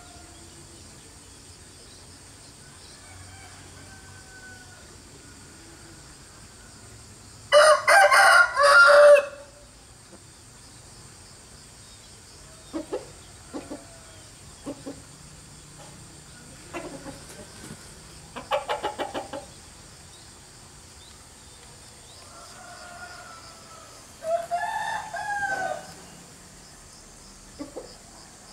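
Chickens: a loud rooster crow about eight seconds in, then scattered short clucks and another call near the end.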